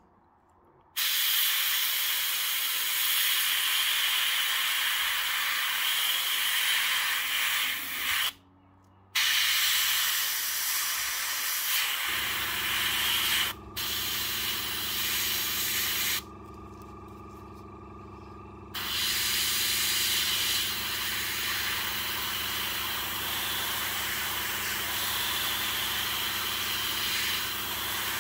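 Fengda starter-kit airbrush spraying paint: a steady, loud air hiss that stops briefly twice and drops to a softer hiss for a couple of seconds midway as the trigger is eased. About twelve seconds in, a low steady motor hum starts underneath, the kit's small air compressor running.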